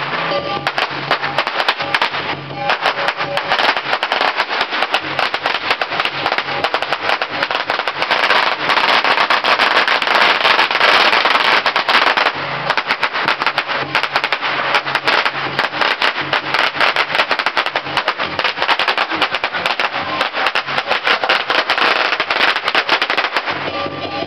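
A long string of firecrackers going off in a rapid, continuous crackle, loudest about halfway through and thinning out near the end.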